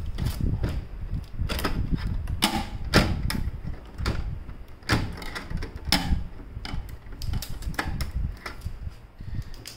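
Plastic clicks and knocks from hands working inside an HP LaserJet Pro MFP M28w printer under its scanner lid, pulling out packing tape. The clicks come irregularly, about a dozen of them, with the loudest about three seconds in.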